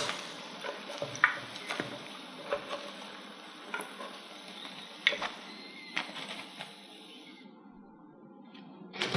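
Hot cooking oil sizzling in a deep-frying wok as fried potato balls are lifted out with a wire skimmer and chopsticks, with light clicks of the chopsticks and skimmer. The sizzle cuts off about seven and a half seconds in.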